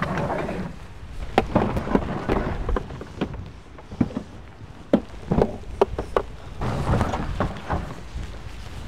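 Rain falling, with scattered sharp taps and knocks over a low rumble of wind.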